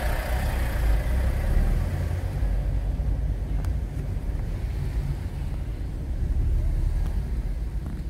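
Car's engine and cabin rumble, low and steady, heard from inside the car.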